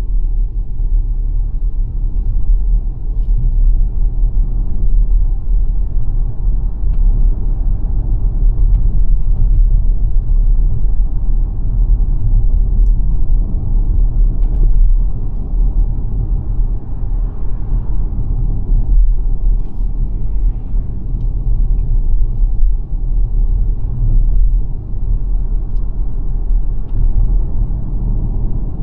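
Steady low road and tyre rumble of a 2026 XPENG G9 Performance electric SUV being driven, with a few faint ticks.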